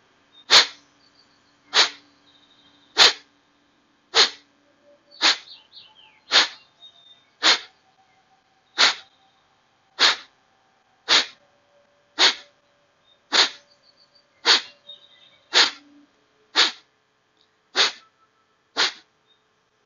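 Kapalabhati (skull polishing breath): forceful exhalations pushed out through the nostrils by a sharp contraction of the belly, each a short sharp puff of air. They come at a steady, slow pace of about one a second, with a quiet, passive inhale between them.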